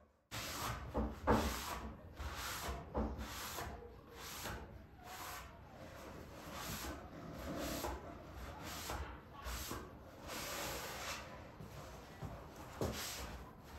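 A cloth rubbing over a stained wood-veneer panel in short, repeated strokes, a little under two a second, as wood stain is worked in and the excess wiped off.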